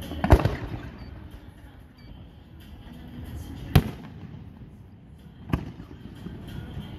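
Aerial firework shells bursting: a sharp cluster of bangs just after the start, the loudest, then single bangs about halfway through and again about three-quarters of the way in.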